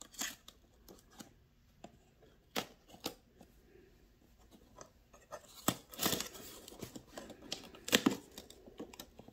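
Hands handling a cardboard box with a few scattered taps and rustles, then a craft knife slicing and tearing through the packing tape along the box's seam, the scraping and ripping strokes thickening from about five and a half seconds in.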